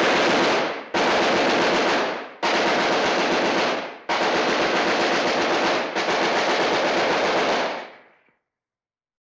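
Classic stock film and cartoon machine-gun sound effect: five sustained bursts of rapid automatic fire, each one to two seconds long, with short gaps between them. Each burst tails off at its end.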